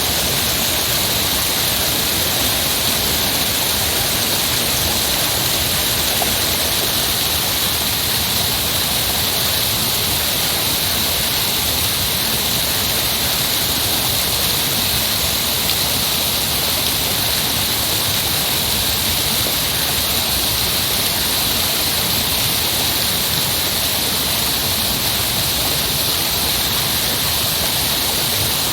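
Heavy rushing water, a steady unbroken hiss with no change in level or character.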